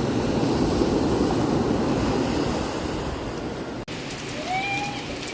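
Steady rushing noise with no clear rhythm or pitch. It breaks off abruptly about four seconds in and resumes quieter, with a brief tone near the end.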